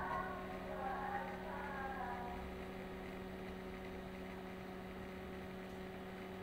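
Steady low electrical hum, with faint background music trailing off in the first two seconds.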